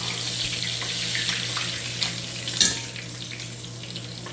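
Breaded winter trout fillets frying in hot oil in a cast-iron skillet: a steady sizzle with small crackles that eases a little after about three seconds. A sharp click about two and a half seconds in.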